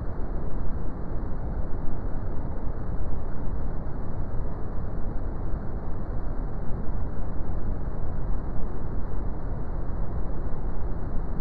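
Brown noise: a steady, deep rumbling hiss with most of its weight in the bass, fading off toward the highs and unchanging throughout.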